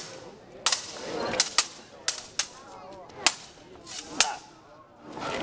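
Swords clashing, blade striking blade, in about eight sharp, irregular clacks over four seconds of sparring.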